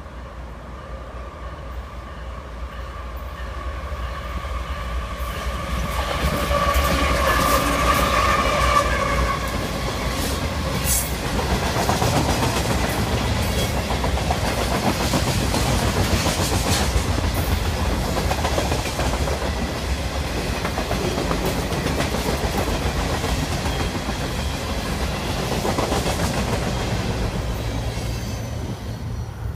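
CSX freight train passing: the lead diesel locomotive approaches and grows louder over the first seven seconds or so. Then a long string of refrigerated boxcars rolls by with steady wheel clatter on the rails, dropping off sharply near the end.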